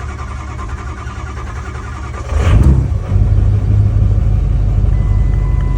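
Vehicle engine cranking on the starter, then catching about two seconds in and running loudly and steadily. This is a no-start vehicle starting up after its fuel injector control module has been replaced.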